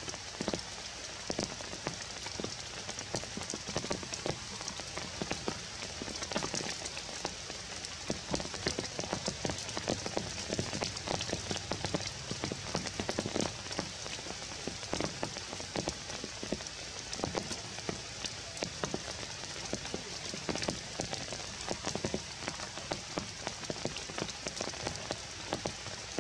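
Rain falling on forest foliage: a steady hiss with many scattered drops striking leaves and branches.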